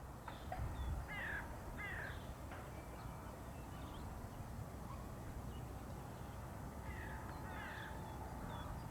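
Birds calling outdoors in short harsh calls, a pair early on and more near the end, over a steady low rumble, with a faint steady tone in the second half.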